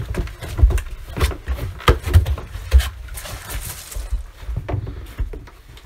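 Footsteps, irregular knocks and thumps, and clothing rustle from several people shuffling through a doorway; the loudest thumps fall in the first three seconds.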